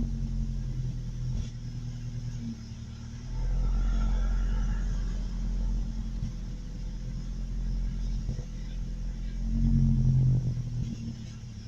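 Truck engine idling roughly, its speed swelling and sagging unevenly, with a surge about three seconds in and another near the end. The owner thinks the rough idle may come from it running low on gas.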